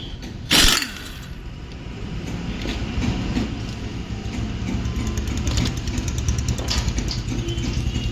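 Pneumatic impact wrench loosening a car's wheel nuts. A sharp, loud burst comes about half a second in, then a steady, low rattling run.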